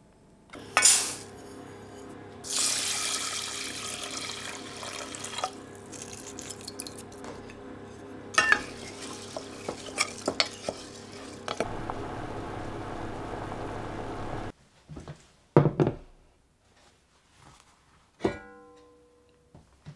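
Kitchen sounds: a steady rushing of water with scattered clicks of a wooden spatula in a steel saucepan as brown rice is stirred. After the rushing cuts off, there are a couple of thumps and a ringing clink of an enamelled cast-iron pot and lid.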